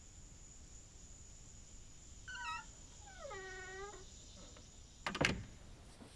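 Creaking door hinges: a short wavering squeal, then a longer one that falls in pitch and holds, followed about five seconds in by a single sharp thud.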